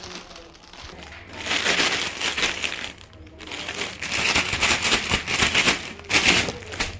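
Packaging crinkling and rustling as a parcel is handled and opened, in two long stretches with a short pause about three seconds in.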